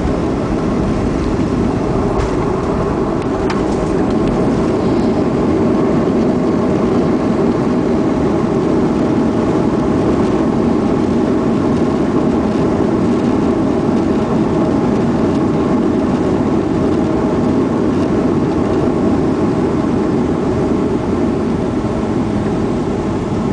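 Loud, steady roar inside the cabin of a Boeing 737-400 during the landing roll-out just after touchdown: its CFM56-3 engines and the wheels on the wet runway. The roar swells a few seconds in and eases a little near the end as the aircraft slows.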